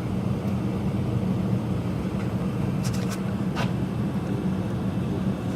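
Steady low rumble of gas water heaters with their burners firing, with a few faint ticks about three seconds in.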